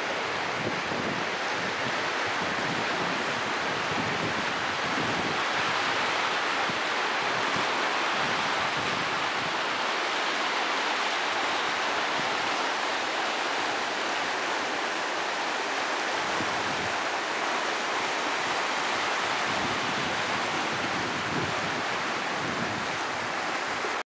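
Fast river rapids rushing: a steady, unbroken noise of whitewater.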